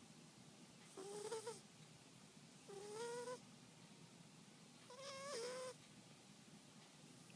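Sleeping kitten snoring: a short pitched, whistle-like note on each breath, three times about two seconds apart.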